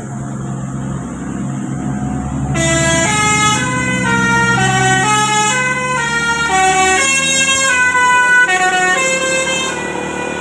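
A bus's diesel engine running and growing louder, then about two and a half seconds in a telolet basuri musical horn plays a tune of quick stepped notes for about seven seconds, stopping near the end.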